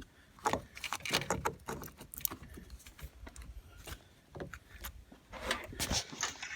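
Metal clinks, taps and scrapes of a battery cable clamp being worked onto a truck battery's terminal post, in scattered irregular strokes with a louder flurry near the end.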